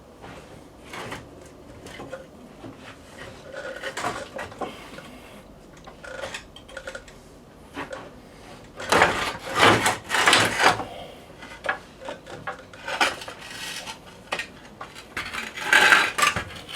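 Wooden boards being moved and a car's steel front subframe being dragged out from under the car: irregular knocks, scrapes and metal clanks, loudest in bursts about nine to eleven seconds in and again near the end.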